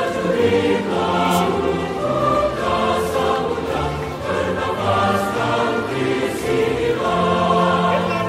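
Choral music: a choir singing long held notes that change pitch every second or so, with no speech over it.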